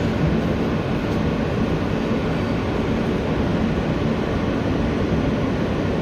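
Kawasaki R160B subway car running along the track, heard from inside the car: a steady rumble of wheels on rails and running gear.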